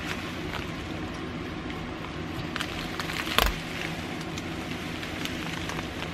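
Bubble wrap crinkling and crackling as it is pulled off a replica championship belt, with one sharp knock a little past halfway.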